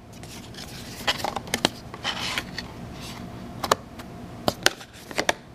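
Empty cardboard phone box being handled, its flaps and insert tapping and scraping: a string of light clicks with a brief rustle a couple of seconds in.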